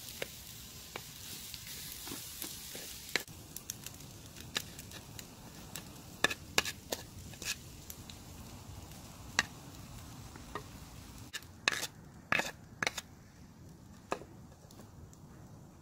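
Macaroni frying in a metal pan over a wood fire, a faint sizzle that dies away over the first few seconds. Then come scattered clicks and scrapes of a wooden spatula and utensils against the pan, with a cluster of sharper knocks near the end.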